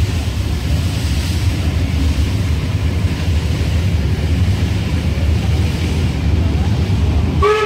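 A train's steady low rumble, with wind noise on the microphone. Near the end a train horn starts sounding.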